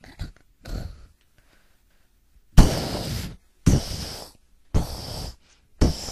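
Heavy dinosaur footstep sound effects: four stomps about a second apart, each a sudden thud trailing into a short rush of noise that cuts off.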